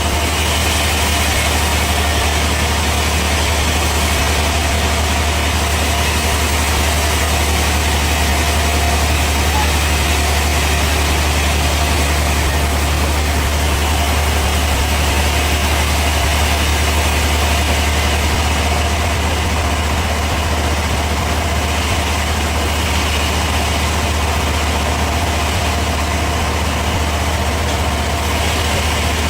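Bandsaw sawmill machinery running steadily, with a constant low hum and an even whir above it.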